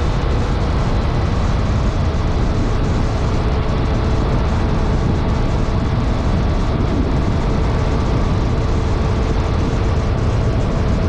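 Steady wind buffeting and road noise from a vehicle moving at speed, heaviest in the low end, with a faint steady tone underneath.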